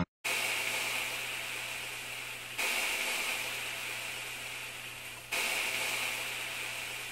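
Frying bacon sizzling: a steady hiss with a low hum underneath. It comes in three stretches, each starting a little louder and fading slightly.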